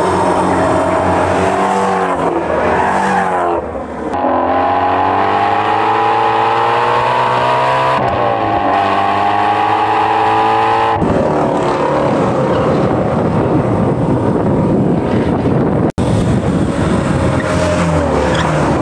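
Ford Mustang Shelby GT350's 5.2-litre flat-plane-crank V8 driven hard on a track. Its note drops and dips about three to four seconds in, then climbs steadily as the car accelerates, and turns rougher and noisier after a cut about eleven seconds in.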